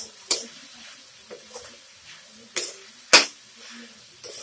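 Spatula stirring mashed potato and onion masala in a steel kadhai, knocking and scraping against the pan in several sharp clacks, the loudest about three seconds in.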